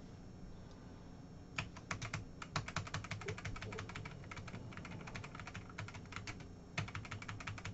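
Typing on a computer keyboard: fast runs of clicking keystrokes that start about a second and a half in, with a short pause near the end, over a low steady hum.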